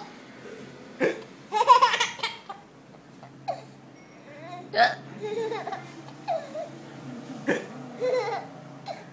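Baby hiccuping: several sharp, short hics a second or more apart, mixed with bursts of laughter, the loudest a run of laughing about two seconds in.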